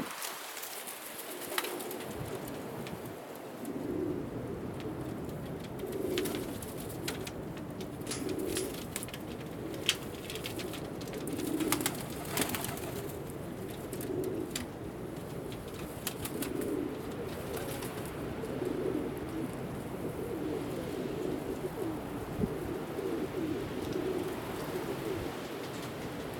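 Altambasi domestic pigeons cooing, a low call repeated every second or two, over a steady hiss with a few sharp clicks.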